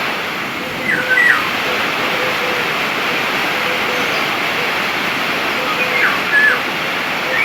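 Steady rushing of a waterfall, with a bird giving short whistled calls twice: about a second in and again about six seconds in.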